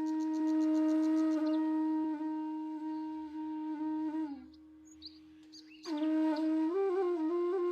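Background music: a wind instrument, flute-like, holding a long steady note. It drops away for about a second and a half midway, then comes back and moves through a few short stepped notes.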